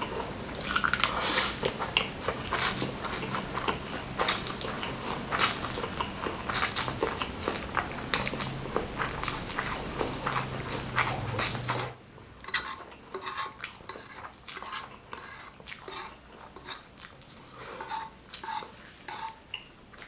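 Close-miked mukbang eating: biting and chewing food with wet mouth clicks and smacks. About twelve seconds in the low background hum cuts off and the chewing becomes quieter and sparser.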